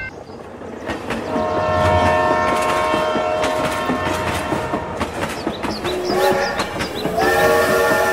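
Toy train sound: a horn blows for about three seconds, then sounds twice more in shorter blasts near the end, over a steady clickety-clack of wheels on track.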